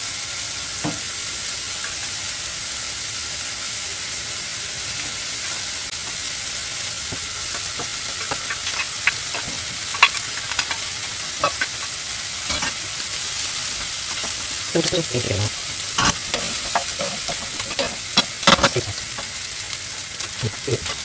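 Rice frying in hot oil with a steady sizzle. From about eight seconds in come scattered scrapes and knocks of a wooden spoon stirring the rice in the pan, busiest near the end.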